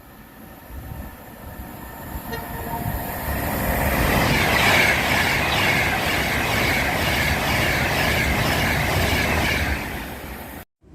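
Train passing at speed: the sound builds as it approaches, then a loud rush of wheels on rail with an even, rhythmic beat, cut off suddenly near the end.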